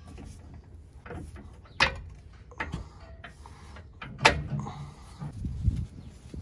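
Hand-handling of steel suspension parts on a Jeep's front axle: a lower control arm worked into its axle bracket, with small clicks and two sharp metal knocks, about two seconds in and again about four seconds in.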